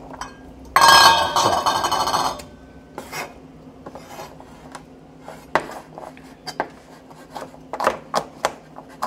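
Chef's knife chopping garlic cloves on a wooden cutting board, with single strokes at uneven intervals. About a second in, a loud scraping rattle lasts about a second and a half.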